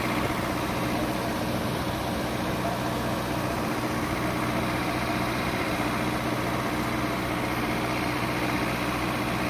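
An off-road vehicle's engine idling, a steady hum with no revving.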